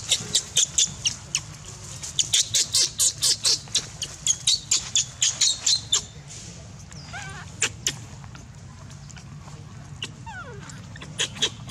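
Baby macaque giving rapid, shrill distress squeals, about four or five a second, for the first six seconds. Then come a few softer, falling cries, and another short run of squeals near the end.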